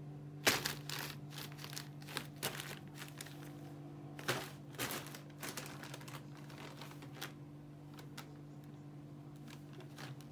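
Thin plastic shopping bags crinkling and rustling as a tabby kitten pushes into and paws at them, in irregular bursts that thin out to a few faint crackles after about seven seconds. A steady low hum runs underneath.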